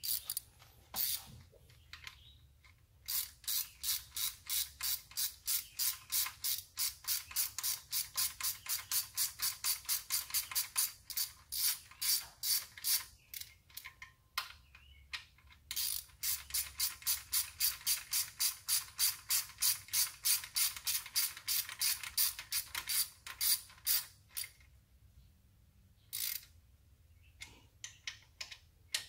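Hand ratchet wrench clicking as a bolt is turned on the engine's front accessory bracket, in two long steady runs of about four clicks a second with a pause between and a few single clicks around them.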